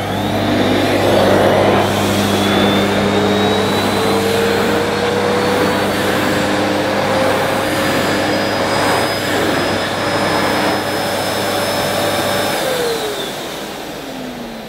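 Hoover Discovery bagless cylinder vacuum cleaner running, just switched on, its motor whine climbing slowly in pitch. About twelve and a half seconds in it is switched off and the whine falls away as the motor spins down.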